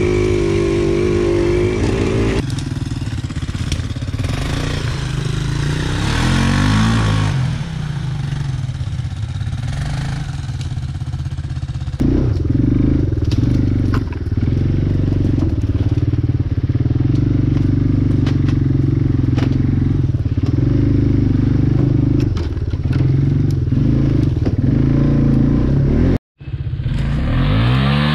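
ATV engine running on a trail ride, its note rising and falling with the throttle, with a rev that climbs and drops near the end. The sound changes abruptly twice and breaks off for a moment near the end.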